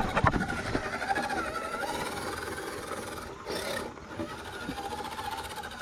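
Electric motors of 1/10-scale RC rock crawler trucks whining, the pitch wavering up and down with the throttle as they crawl. A sharp knock comes right at the start, and a short hiss about three and a half seconds in.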